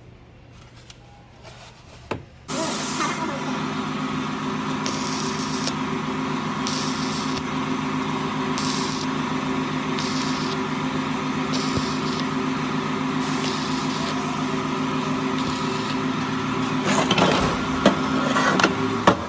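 Car engine runs steadily with a hum and hiss, coming on abruptly about two and a half seconds in after a click. The hiss swells every couple of seconds, consistent with exhaust leaking at a cracked exhaust manifold.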